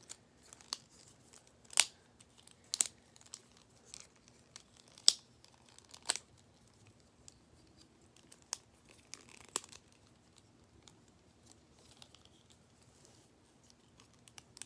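Infinity cube fidget toy being flipped and folded in the hands: scattered, irregular sharp clicks and clacks, about a dozen in all.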